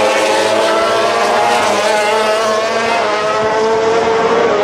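MotoGP racing motorcycle engines running at speed: a loud, steady engine note with several overlapping engine tones that drift slowly in pitch.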